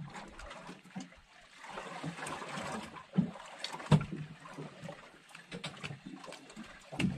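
Sea water lapping and splashing against the side of a small boat, with a few dull knocks on the hull, the strongest about four seconds in and again near the end.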